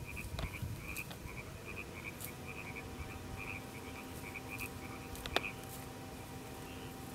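Frogs croaking in a quick run of short calls, about four a second, that stops about five and a half seconds in. A sharp camera-shutter click sounds about five seconds in.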